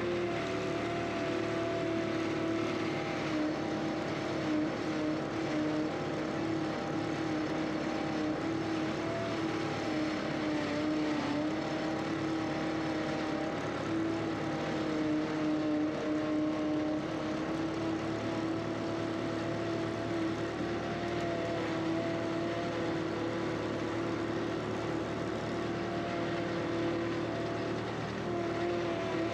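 Skid steer engine running steadily, a continuous drone whose pitch holds nearly level, sagging slightly now and then.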